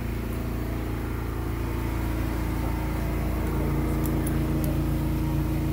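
A steady low motor drone with even, unchanging tones. There are a few faint metallic clicks about four seconds in as a carabiner is clipped onto the tree tether.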